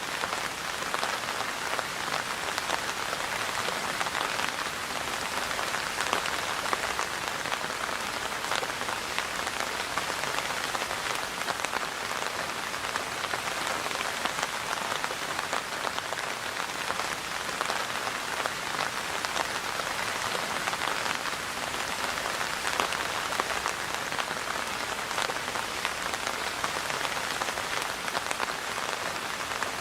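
Steady rain falling, a dense patter of many small drop impacts on a surface.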